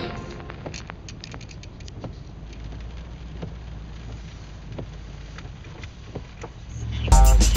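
Raindrops ticking irregularly on a car's roof and windshield over the low, steady rumble of the car driving on a wet road. Music comes in near the end.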